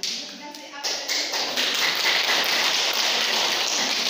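Audience applauding, starting about a second in and keeping up steadily.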